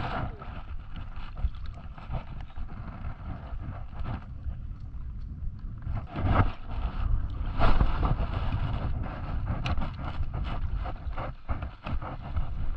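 Wind buffeting the microphone, a steady low rumble, with louder gusts or bumps about six and eight seconds in.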